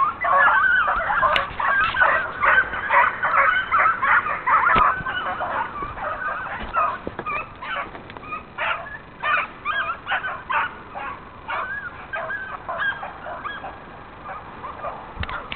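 A pack of hunting beagles in full cry, a dense chorus of overlapping baying and yelping calls. The chorus grows fainter as the pack moves away.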